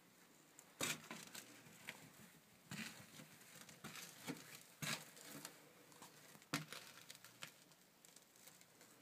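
Faint, irregular rustling and crinkling, with several sharper rustles a second or two apart.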